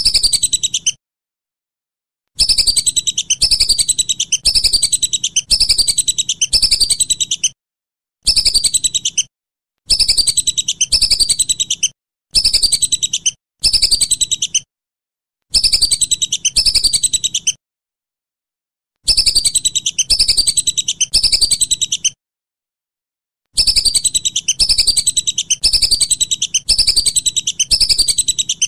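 Whistling duck (belibis) calls: high, falling whistled notes, about two a second, in runs of one to five seconds separated by abrupt dead-silent gaps, as from an edited, looped recording.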